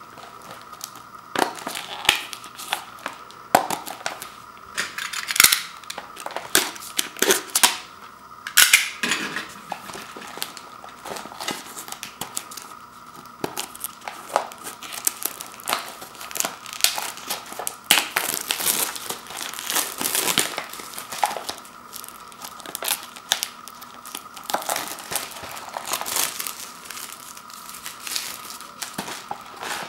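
Plastic film wrapper of an instant-noodle tray being torn open and peeled off by hand: irregular crinkling and crackling, with louder bursts at intervals.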